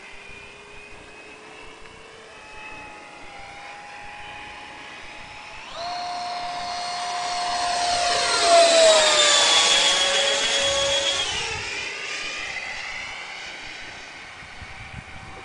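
Electric ducted-fan model jet (90 mm VASAFAN driven by a Typhoon 700-68 brushless motor) flying by with a high-pitched whine. The whine jumps up sharply about six seconds in, grows loudest as the jet passes close, then its pitch drops and it fades away.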